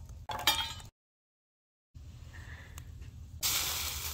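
A short loud burst about half a second in, a second of dead silence, then from near the end a steady sizzle of liquid in a shallow metal pan heating on a charcoal grill.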